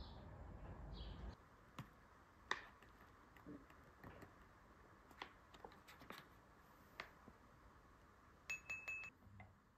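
Faint bird chirps over a low outdoor rumble in the first second. Then soft scattered clicks and taps as a bamboo matcha scoop works a foil pouch and a ceramic tea bowl, with a brief ringing tap of the scoop on the bowl near the end.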